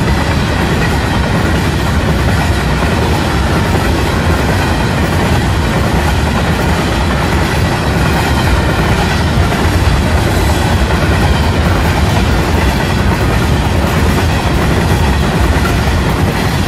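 Freight train of hopper wagons rolling past close by: steady, loud rumble and clatter of steel wheels on the rails.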